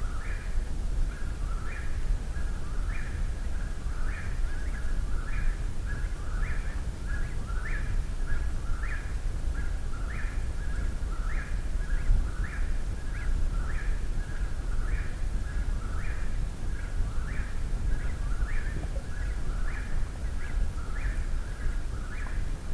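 Eastern whip-poor-will singing its song over and over without a break, about one and a half phrases a second, over a steady low rumble.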